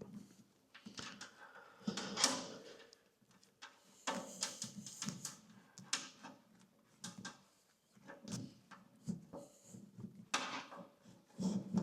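Wiring harness being handled and fed through the bulkhead, with irregular rustling scrapes, clicks and light knocks against the metal.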